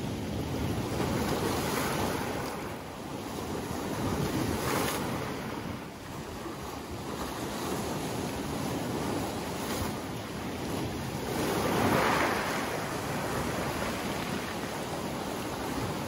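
Sea waves breaking around boulders and washing up over a pebble shore, a continuous wash that swells and falls back in slow surges, the loudest surge about three-quarters of the way through.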